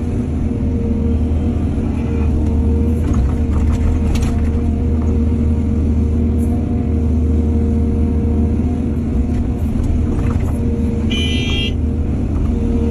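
Excavator's diesel engine running steadily, with a few short clanks and a brief high tone near the end.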